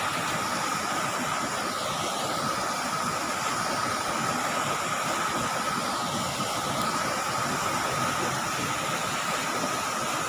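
Steady hiss of rain and running floodwater, even and unbroken, with a thin steady high tone above it.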